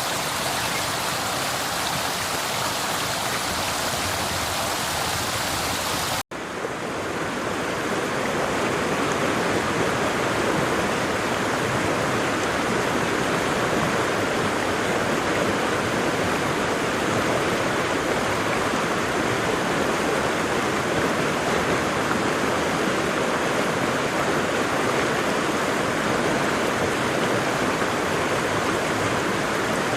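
Waterfall rushing steadily. About six seconds in the sound cuts out for an instant, and after that the rush is fuller and less hissy.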